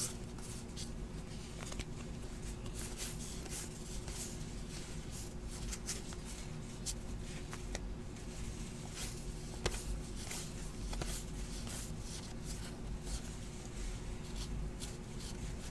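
Topps Heritage baseball cards handled and flipped through one by one, giving many quick, irregular light swishes and clicks of card stock over a steady low hum.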